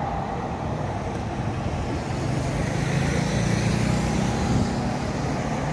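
Road traffic: a steady rush of passing cars, with one vehicle's engine hum growing louder about two seconds in and easing off near the end.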